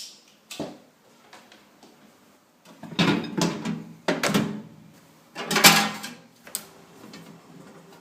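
Handling noises: a sharp click, a knock, then three loud scraping clatters about a second apart and another click, followed by a faint steady hum.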